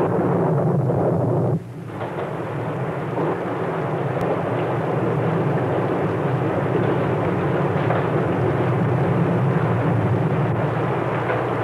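Steady rushing storm noise on a worn old film soundtrack. It dips briefly about a second and a half in, then builds back up.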